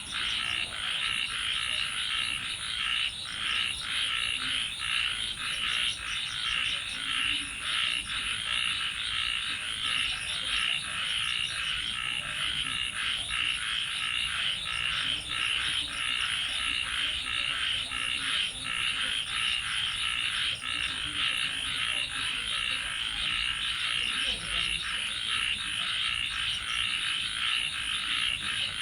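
A dense chorus of frogs calling continuously, many rapid pulsed croaks overlapping, with a thin, high, fast-pulsing buzz running above them.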